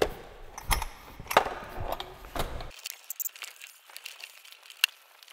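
Scattered clicks, knocks and light clinks of hand tools and plastic trim pieces while a car's interior console is being dismantled. The knocks are denser at first, then thin out after about two and a half seconds to occasional faint ticks.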